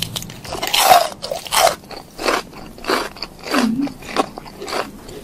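A bite into a large raw cucumber, then crunchy chewing close to the microphone, with regular crunches about every two thirds of a second.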